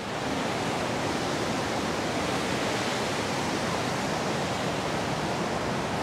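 Steady rushing of a waterfall cascading over rocks.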